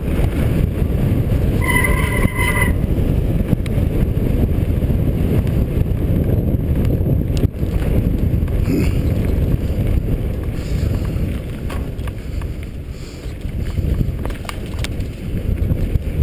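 Mountain bike rolling fast down a rocky dirt trail: steady tyre rumble, chain and frame rattle and wind on the microphone. About two seconds in, a disc brake squeals briefly as the rider brakes.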